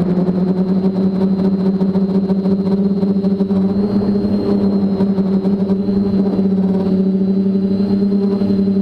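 TBS Discovery quadcopter's four brushless motors and two-blade 10x4.5 propellers humming steadily in flight, the pitch wavering slightly as the throttle shifts.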